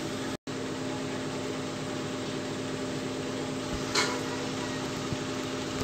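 Steady low hum and hiss of background room noise, with one short click about four seconds in. The sound drops out for an instant near the start.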